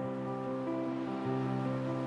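Slow, soft instrumental music from a stage keyboard: held chords that change a few times, with no singing.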